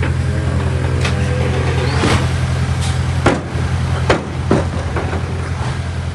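Heavy diesel earthmoving machine running steadily, with a string of sharp metallic clanks and knocks about a second apart.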